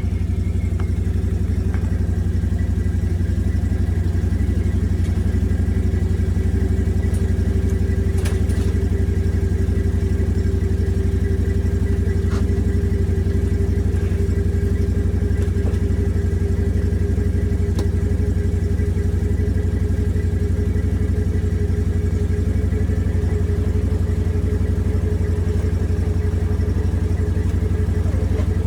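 Vehicle engine idling steadily, with a few brief clanks from work going on beside it.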